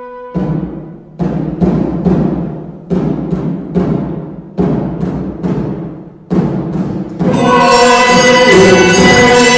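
A hymn introduction: a low drum is struck in quick groups of three, each stroke ringing out. About seven seconds in, handbells and the rest of the church ensemble come in together, loud and ringing.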